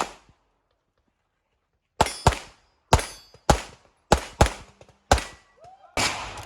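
Handgun shots in a rapid competition string: seven sharp cracks in about three seconds, some as quick doubles, each with a short echo. They start after about two seconds of silence, and a denser rush of noise begins near the end.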